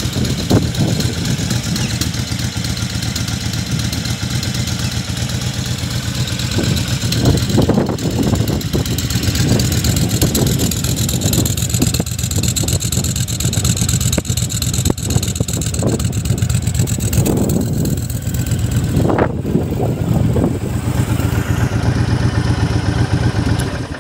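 Honda VTX 1300 Retro's V-twin engine idling steadily through its twin exhaust, with a few brief rises in revs along the way.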